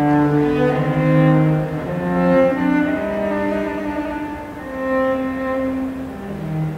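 Cello playing a slow melody of held, bowed notes, each lasting about half a second to a second and a half before moving to the next pitch.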